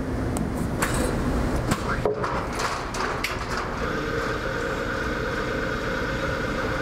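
XSharp tool-sharpening grinder starting its sharpening cycle: coolant spraying inside the enclosure with a steady rushing noise, and a few clicks and knocks in the first three seconds. From about four seconds in, a steady machine hum with a higher tone sets in.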